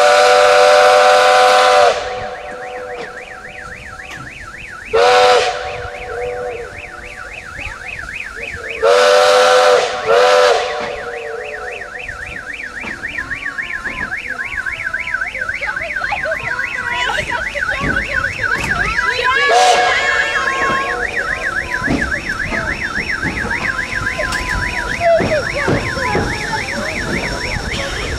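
Steam locomotive whistle blowing: a long blast, a short one about five seconds in, and two more close together around nine to ten seconds. After that the train's running noise rises into a steady, rapid rhythmic beat as it pulls away from the station.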